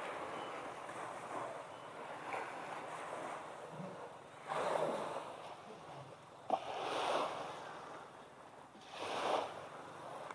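Small waves washing up on a sandy beach: a steady rush with three louder surges a couple of seconds apart, and a single sharp click partway through.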